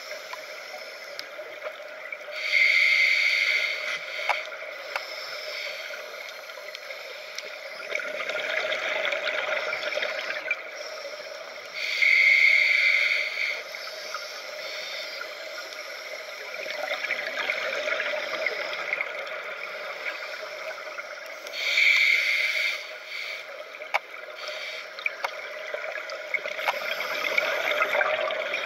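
Scuba diver breathing through a regulator underwater: three loud bubbling exhalations about every nine to ten seconds, with a quieter inhaling hiss between them. Faint scattered clicks run underneath.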